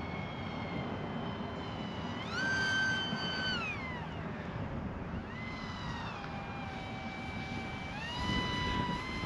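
Small electric RC plane's motor and propeller whining overhead, its pitch jumping up and sliding back down several times as the throttle is raised and cut.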